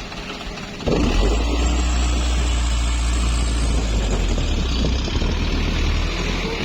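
Heavy diesel engine running. It jumps up in level about a second in, then holds steady with a low drone.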